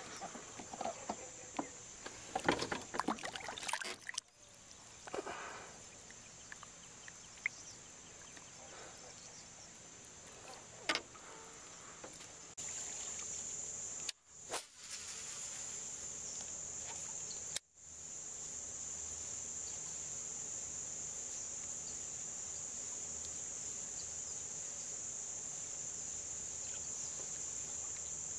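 Steady high-pitched chorus of insects. There are scattered knocks and handling sounds in the first few seconds, and the sound cuts out briefly twice in the middle.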